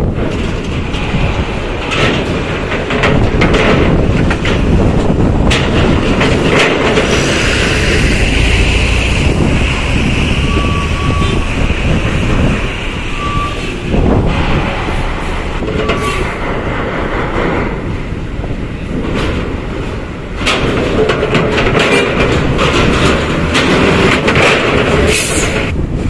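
Large coach buses driving past at close range: steady heavy engine and tyre noise broken by many sharp knocks and clanks, with a few short beeps near the middle.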